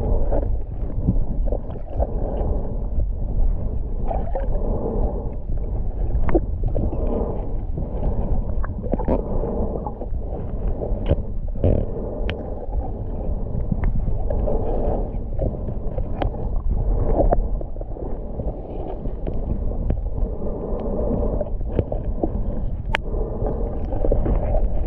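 Muffled underwater rumble and sloshing picked up by a submerged camera, swelling and fading every second or two, with scattered sharp clicks.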